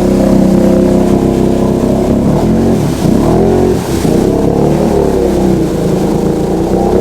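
Can-Am Outlander ATV's V-twin engine running hard under throttle in mud; the revs dip and climb back up a couple of times around the middle, then hold steady.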